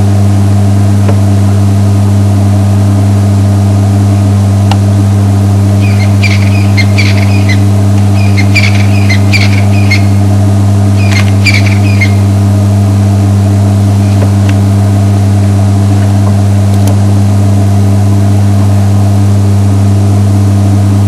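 Safari game-drive vehicle's engine idling with a steady low hum. Short clusters of high bird chirps come through over it about six to twelve seconds in.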